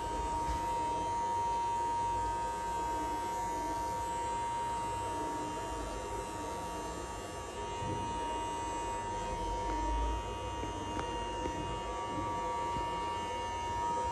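Electric hair clipper running steadily at one constant pitch, held at the hair on top of the head.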